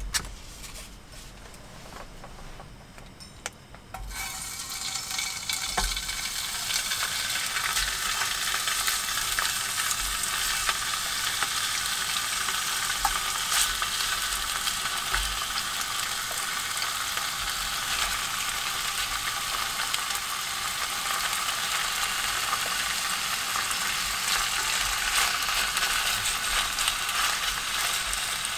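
Raw sliced meat sizzling and crackling as it is laid into a hot aluminium mess tin over a small gas stove. The frying starts suddenly about four seconds in and then keeps up a steady sizzle. There is a single sharp click at the very start.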